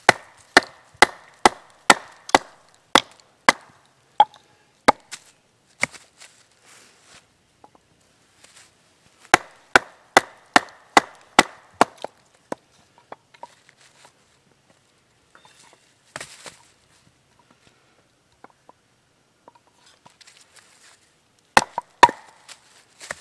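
Hatchet blade chopping into a split log on a stump, shaping a wooden mallet handle. Sharp wooden knocks come in quick runs of about two to three strikes a second, with a short loud cluster near the end.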